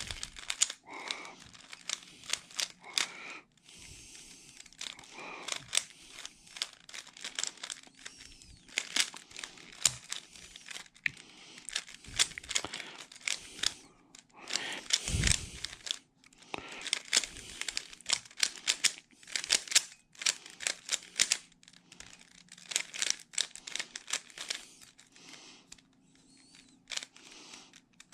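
A Rubik's Cube being turned quickly by hand: flurries of rapid plastic clicks and rattles as the layers are twisted, broken by short pauses. One heavier thump about fifteen seconds in.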